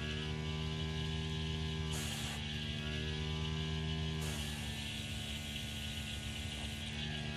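Small airbrush compressor running with a steady hum, and the airbrush hissing as air is blown through it: a short blast about two seconds in, then a longer one from about four seconds in.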